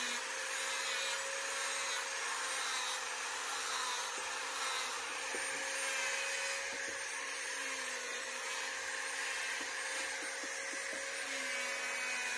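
Small angle grinder with a sanding disc running steadily at a constant pitch while sanding down a wooden piece fitted into a buffalo horn, the disc rubbing and hissing on the wood.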